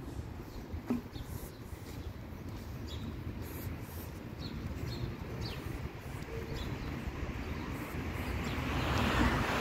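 Outdoor city ambience: a steady low traffic rumble with scattered short bird chirps, and a single click about a second in. Near the end a broad rushing noise swells up.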